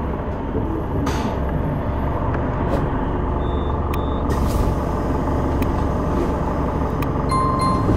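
City bus driving along, heard from inside: steady engine and road rumble with a few short hisses. Two short electronic beeps cut through, a high one about halfway and a lower one near the end.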